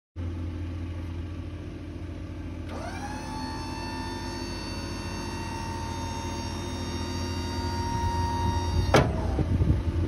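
School bus wheelchair lift running over a steady low rumble: its electric pump motor whines up in pitch about three seconds in, holds a steady whine, then cuts off with a sharp click about a second before the end, followed by a few knocks as the platform settles.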